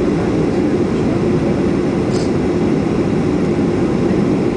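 Steady drone of engine and airflow noise inside an airliner's passenger cabin during the descent to land.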